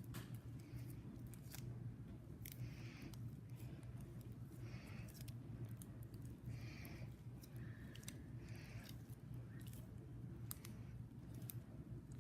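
Freshly made glue slime being squished and stretched by hand, faint sticky clicks and short wet squelches coming and going over a steady low hum.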